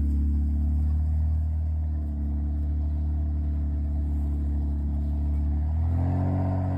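A four-wheel-drive vehicle's engine running steadily under a strong low drone; about six seconds in its pitch changes to a new steady level.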